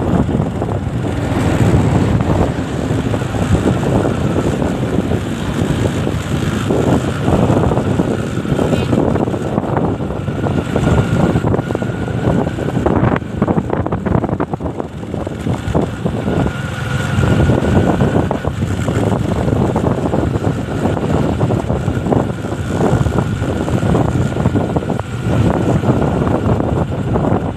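Motorcycle engine running while the bike rides along, heard from the rider's seat, with wind buffeting the microphone.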